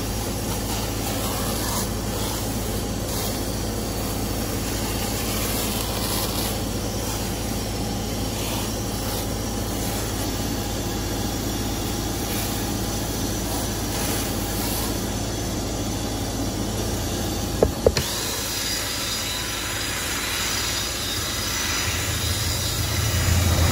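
Steady mechanical hum with hiss while cleaning foam is sprayed onto a cloth car seat. Two sharp clicks come near the end, then a cordless drill with a brush attachment starts buzzing as it scrubs the seat upholstery.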